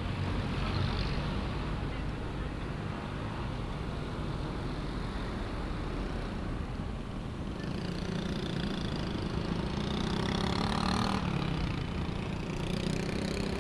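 Steady wind rushing over the microphone of a rider moving through traffic, with vehicle engines running underneath. A pitched engine sound rises out of the rumble for a few seconds, about two-thirds of the way through.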